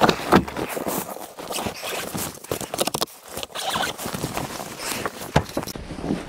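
Rustling and scraping of jacket fabric against the microphone as the camera is handled and moved, with a couple of sharp knocks.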